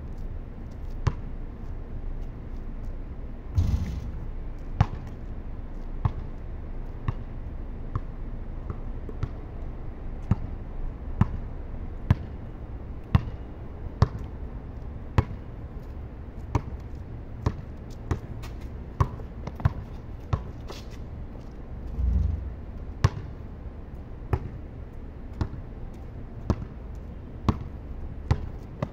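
Basketball dribbled on a concrete court: sharp bounces about once a second, now and then a little quicker.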